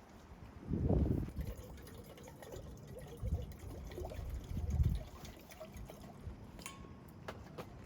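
Liquid being poured and trickling, with a few light clicks near the end. Low rumbles of wind buffet the microphone about one and five seconds in.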